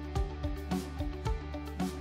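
Background music with a steady beat: sustained low notes under short pitched notes.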